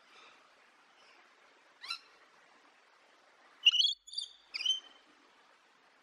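Short, high-pitched chirping calls over a faint, steady twittering background: one quick upward-sweeping chirp about two seconds in, then a rapid run of three sharp notes about four seconds in, the first of them the loudest.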